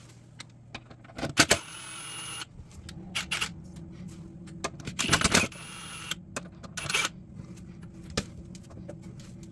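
Metal tool clicks and clinks from work at the Y-axis lead-screw nut under a surface grinder's saddle. A few sharp clatters sound over a low steady hum.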